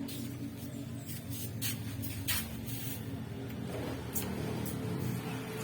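Small 50cc engine running steadily at an even speed, with several sharp clicks over it.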